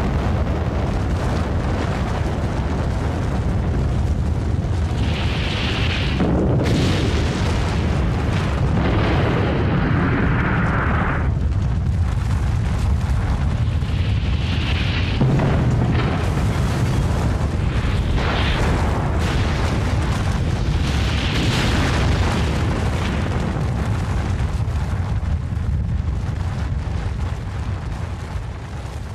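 Atomic bomb blast sound effect: a deep, continuous rumbling roar with rushing, hissing surges every few seconds. It fades near the end.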